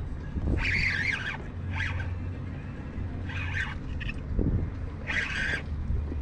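Spinning reel's drag buzzing in several short bursts as a hooked fish pulls line off, over a steady low rumble of wind on the microphone.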